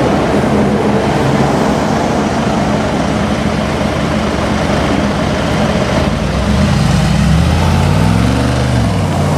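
2019 Mercedes-AMG G63's twin-turbo 4.0-litre V8 running loudly through its exhaust, then revving up once and dropping back near the end.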